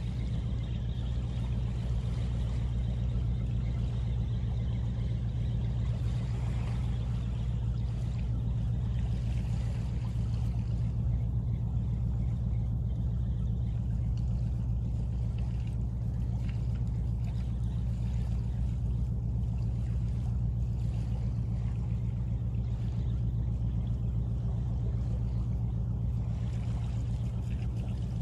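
Steady low mechanical drone, a deep hum that holds unchanged throughout.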